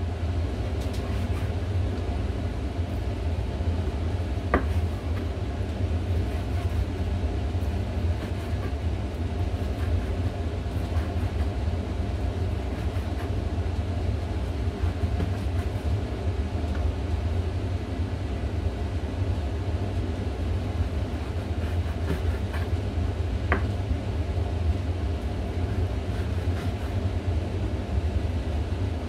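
A steady low rumble with a kitchen knife working on a wooden cutting board over it. The blade taps the board sharply twice, once a few seconds in and once later on.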